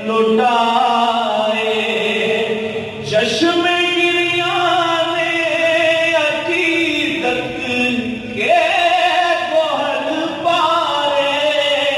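A man singing a manqabat, an Urdu devotional poem, solo into a microphone, in long held notes with ornamented pitch bends and brief breaths between phrases.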